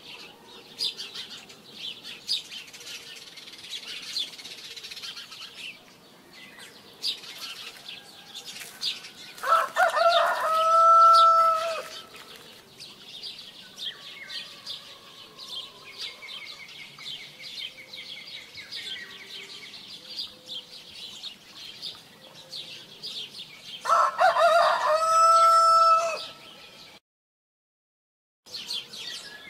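A rooster crowing twice, once about ten seconds in and again near the end, each a long drawn-out call, over constant chirping of small birds. The sound drops out completely for about a second just before the end.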